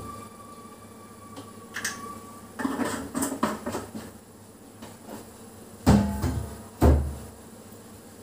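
Kitchen handling noises: a short spell of clattering and rattling, then two loud knocks about a second apart, the first followed by a brief ring.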